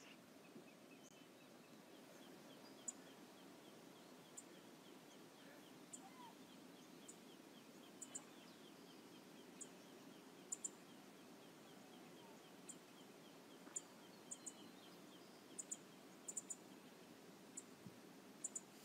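Faint steady rush of river water, with short sharp high chips scattered throughout, several in pairs, and a faint rapid series of high ticks over the first two-thirds.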